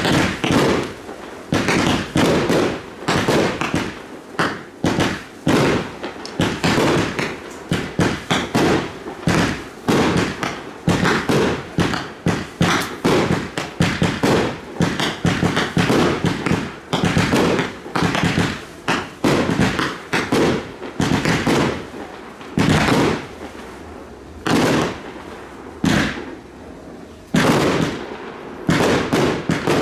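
Fireworks display going off in a dense, rapid barrage of bangs, many a second. The barrage thins out for a few seconds past the twenty-second mark, then resumes.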